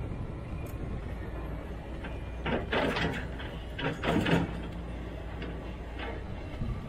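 Sumitomo 490 excavator's diesel engine running with a steady low hum while it digs; about two and a half and four seconds in, two short bursts of scraping and crunching as the bucket tears through dirt and rubble and lifts out of the pit.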